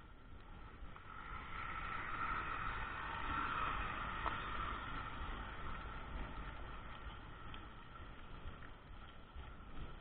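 A bus passing close by on a dirt road, its engine and tyre noise swelling to a peak about three to four seconds in and then fading away, over the steady low rumble of the mountain bike rolling on the dirt.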